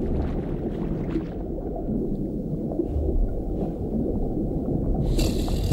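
Cartoon underwater ambience: a steady, low rumble of deep water. About five seconds in, a brighter rushing noise joins it.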